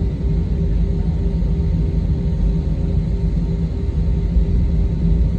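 Airplane engines running steadily before take-off: a low rumble with a steady hum over it.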